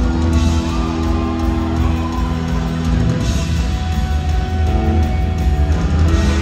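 Live punk rock band playing loud, with distorted electric guitar over a heavy low end; the held chords change about halfway through.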